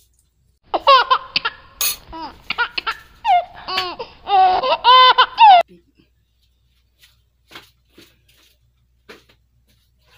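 High-pitched laughter in a quick string of short bursts lasting about five seconds, followed by a few faint clicks.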